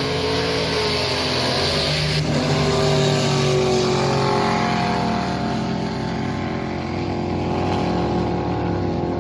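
Racing jet boat engine running at high revs down the course, loud and steady with a few small rises in pitch.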